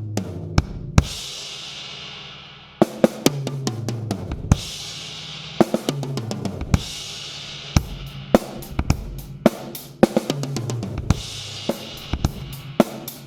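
Drum kit played by hand: a fill around the toms stepping down in pitch, two hits per drum with one hit dropped on the last tom for a bass drum kick, crashing into a cymbal and a steady beat. The fill comes round several times.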